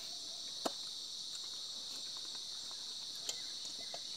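Steady, high-pitched chirring of an insect chorus, with two sharp clicks, one a little under a second in and another past three seconds.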